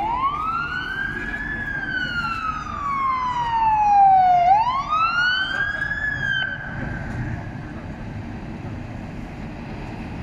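Siren of a Scania GCBA heavy fire tender on an emergency run, in a slow wail that rises quickly and falls slowly, twice, then cuts off about six and a half seconds in. The truck's diesel engine runs on as it approaches.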